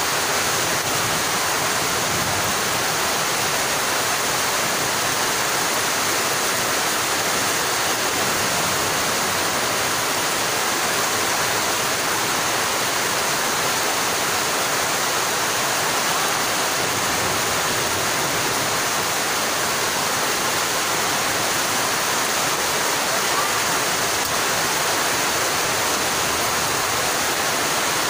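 Heavy rain falling in a steady downpour, an even hiss without a break.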